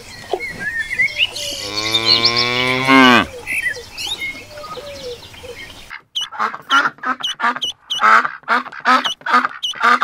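A cow mooing once, a long moo of nearly two seconds that drops in pitch at the end. About six seconds in, the sound switches to domestic ducks quacking in quick repeated calls, about two a second.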